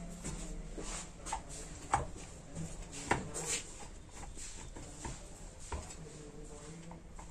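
Faint scattered clicks and scrapes of a long-shafted nut driver turning the nuts that hold the cover on an electric polisher's gear head, with the tool and machine being handled on the bench. The two sharpest clicks come about two and three seconds in.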